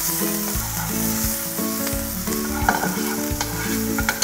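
Red curry paste sizzling in a hot frying pan as it is stirred, with scattered clicks and scrapes of a metal spoon against the pan. Background music with held notes runs underneath.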